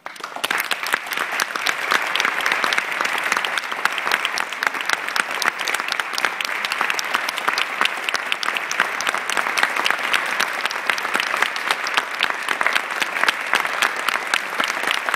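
Audience applauding at the end of an orchestra piece: the clapping breaks out suddenly and stays dense and steady.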